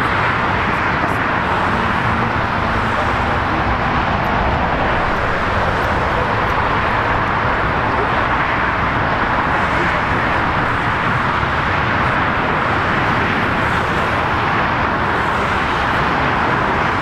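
Airbus A320neo's CFM LEAP-1A turbofans at taxi idle: a steady, even rushing noise that holds one level throughout.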